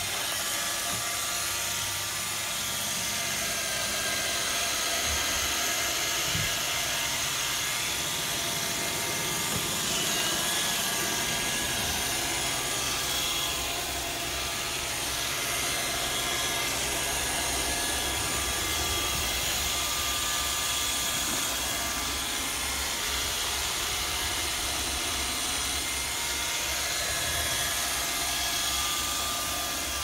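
Robot vacuum running as it drives across a wooden floor: a steady motor whir and hiss with several high whining tones, and irregular low knocks and rumbles underneath.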